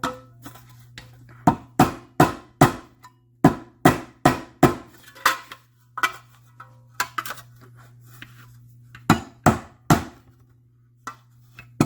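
Light, irregular body-hammer taps on thin sheet-metal trim worked over a dolly, knocking out a dent. There are about twenty strikes, often two or three in quick succession, with a short pause about two-thirds of the way through.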